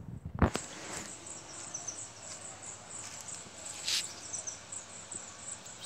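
Insects chirping in a high, rapidly repeated pattern over a steady outdoor hiss, with a sharp knock about half a second in and a brief burst of noise about four seconds in.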